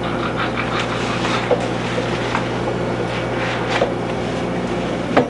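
Steady electrical hum and tape hiss of an old home-video recording, with faint rustling and a few small clicks as a paper napkin wipes a baby's face and hands.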